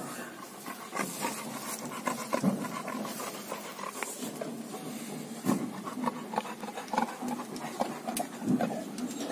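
A dog panting, with scattered light clicks and knocks as the dogs shift about on the plastic slatted floor of a wire cage.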